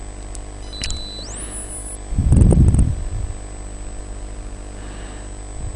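A breath puffing onto a close desktop microphone, a short low rumble a little past two seconds in, over the microphone line's steady hum and a faint constant high whine. A faint high electronic tone glides upward about a second in.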